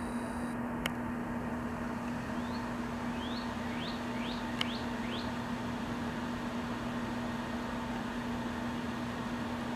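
A steady mechanical hum, like a fan or air-conditioning unit, with a run of about six short rising bird chirps from about two to five seconds in, coming closer together, and two sharp clicks.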